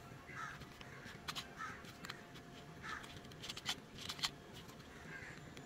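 Small plastic parts of a toy car gearbox and its motor frame clicking and tapping as they are handled, with a few sharp clicks in two clusters about a second and a half in and toward the end.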